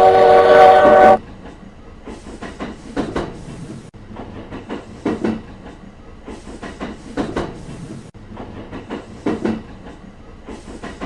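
Train horn sounding a loud, steady chord that cuts off about a second in, followed by a much quieter clickety-clack of train wheels running over rail joints.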